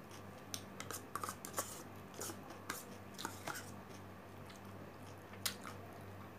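Close-up eating sounds as a plastic spoon works at a small plastic cup and she eats from it: a string of small clicks and smacks for about three seconds, then one sharp click near the end, over a steady low hum.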